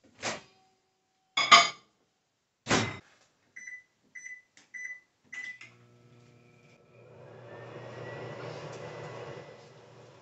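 Over-the-range microwave oven: its door is pulled open and shut with three sharp clunks, four short keypad beeps follow, and then the microwave starts and runs with a steady low hum and a whirring fan.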